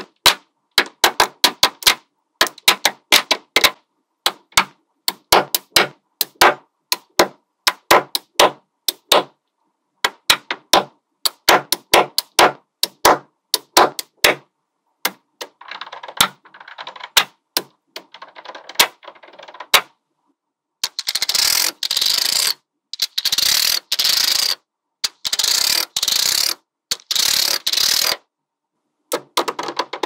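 Small magnetic balls clicking as they snap onto one another: dozens of sharp single clicks, often in quick runs of two to four. From about two-thirds of the way in they give way to several rasping stretches about a second each.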